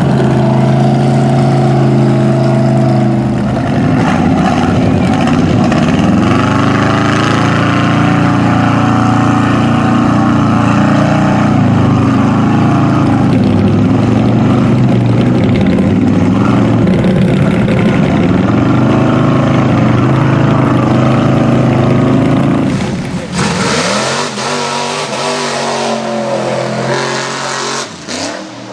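Mud truck engines held at high revs while churning through mud, a sustained loud drone that wavers in pitch. About 23 seconds in it switches to another truck revving up and down in surges, with a hiss of spraying mud.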